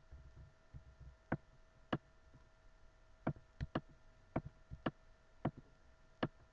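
Computer mouse button clicking about ten times, some in quick pairs, over a faint steady hum.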